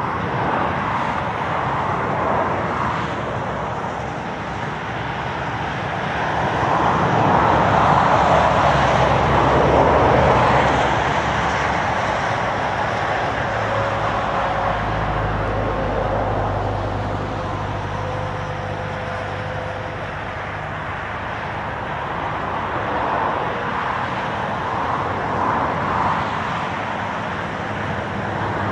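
Airbus A319 with two CFM56 jet engines on final approach, heard from the ground as a steady, broad jet rumble. It swells about a third of the way in and a low hum joins it in the middle.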